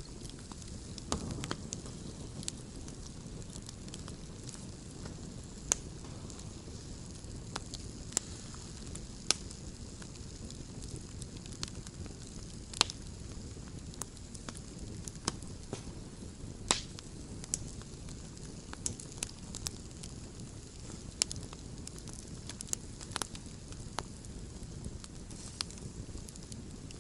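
Wood campfire burning: a steady low rumble with irregular sharp crackles and pops, several louder snaps spaced a second or more apart.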